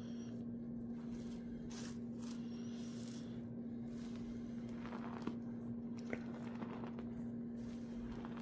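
Gym chalk being crushed, crumbling in irregular crunches with a few sharper cracks in the middle. A steady low hum runs underneath.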